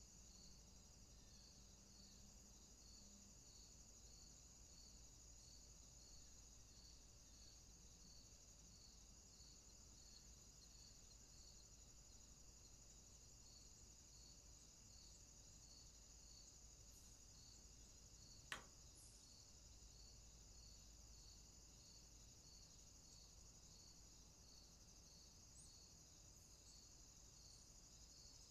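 Near silence: faint room tone with a steady high hiss and a faint chirp repeating about twice a second, and a single brief click about two-thirds of the way through.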